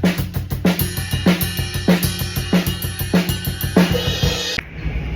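Drum kit playing a steady beat, with a heavy hit about every 0.6 s under cymbals and hi-hat, which stops abruptly about four and a half seconds in. A low steady rumble is left behind it.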